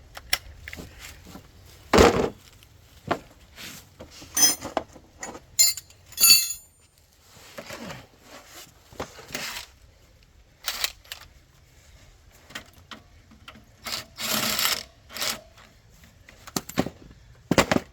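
Metal hand tools and sockets being rummaged through and handled: a scattering of separate knocks, clanks and clinks, with a few short ringing metal clinks about five to six seconds in.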